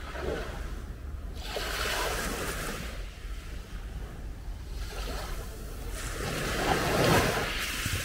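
Small sea waves washing onto a beach in gentle surges. One swell comes about one and a half seconds in, and a louder one near the end.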